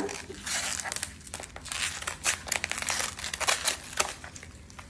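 Bubble wrap crinkling and crackling irregularly as it is handled and unwrapped by hand, easing off near the end.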